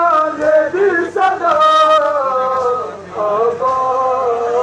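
A man chanting a noha, a Shia mourning lament, through loudspeakers, holding long notes that slowly rise and fall.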